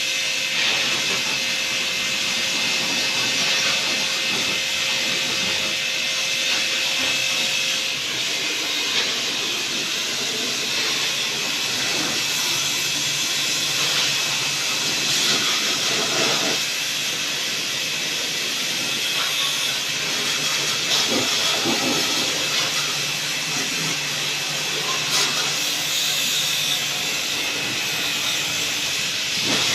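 Steady, loud hiss of a spray jet, the kind used in cleaning a window air conditioner, with a few faint steady tones under it in the first eight seconds.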